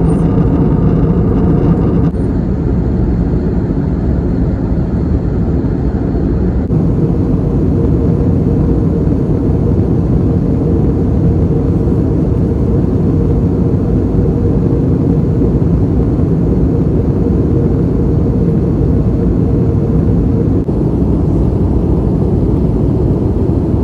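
Steady cabin noise of an Airbus A321neo in flight, the rumble of its Pratt & Whitney PW1100G geared turbofans and the airflow heard from a window seat over the wing.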